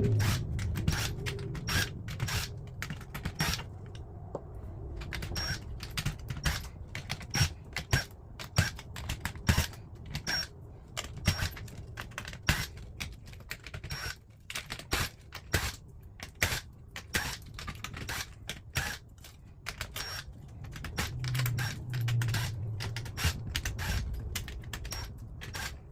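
Irregular clicks, taps and light scrapes of plastic parts and screws being handled as a DJ controller is taken apart by hand.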